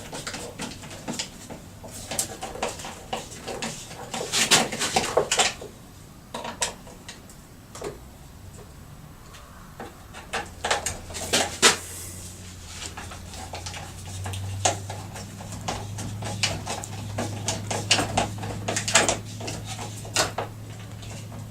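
Scattered metallic clicks, clinks and knocks of hand tools and chainsaw parts being handled while felling dogs are fitted to the saw, with a denser clatter around four to five seconds in and again around eleven seconds. A low steady hum comes in about ten seconds in.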